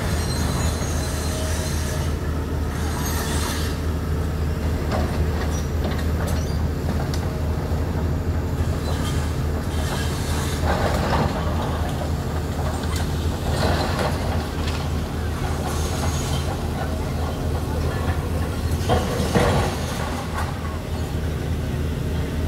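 Hitachi excavator's diesel engine running steadily under load, with a few louder bursts of scraping and crunching as its bucket tears at the station roof, the loudest near the end.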